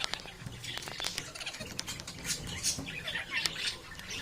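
Small birds chirping and chattering in quick, irregular calls, mixed with sharp clicks.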